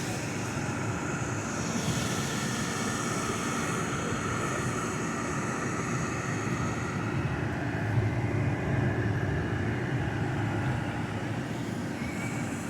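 GE ADEL30LRQ2 dehumidifier running at its continuous high setting: the fan blowing and the compressor humming steadily and evenly.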